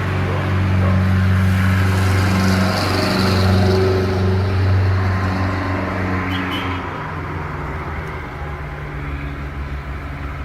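A steady low motor hum, whose pitch pattern changes about seven seconds in.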